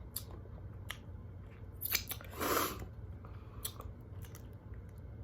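Close-miked chewing and mouth sounds of eating a loaded corn dog: scattered soft clicks and smacks, with a short breathy rustle about two and a half seconds in.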